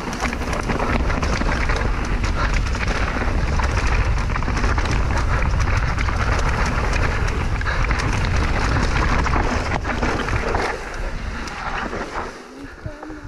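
Wind rushing over the camera microphone while a mountain bike rides fast down a dirt trail. Tyres roll on loose dirt and the bike clatters, with many small rattles and knocks over a deep, steady rumble. The noise eases off near the end.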